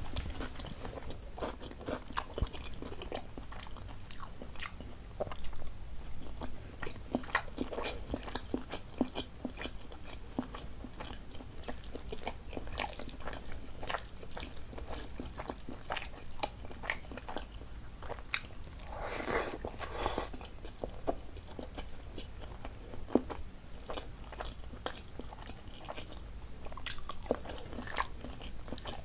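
A person eating close to the microphone: steady chewing with many sharp wet mouth clicks and occasional crunches, and a longer, louder noisy sound about two-thirds of the way through.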